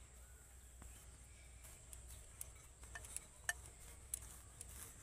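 Faint sound of a wooden rolling pin rolling out dough on a stone board, with a few short light clicks about three to four seconds in.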